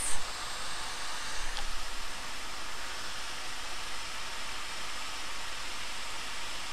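Quick 861DW hot air rework station blowing a steady hiss of air at 100 litres a minute and 490 °C onto a surface-mount fuse to melt its solder for removal.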